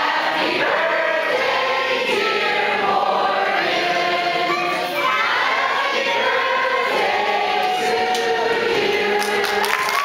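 A group of voices singing a song together, choir-like, with long held notes.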